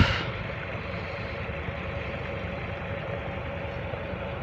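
A tractor engine running steadily at a constant speed, driving a tubewell (bore) pump; a steady low rumble.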